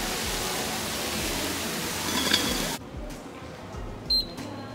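Even hiss of outdoor street noise, cutting to a quieter station about three seconds in. About a second later a subway fare gate gives a short, high beep as a transit card is tapped on its reader.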